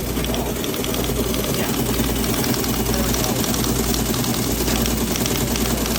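Teletype machine running, a steady mechanical hum with a faint, rapid, regular ticking.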